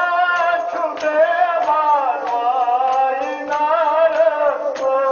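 Mourners chanting a Kashmiri nohay, a Muharram lament, in a wavering, gliding melody. Sharp slaps at a regular beat, about every two-thirds of a second, run under the chant, typical of matam chest-beating.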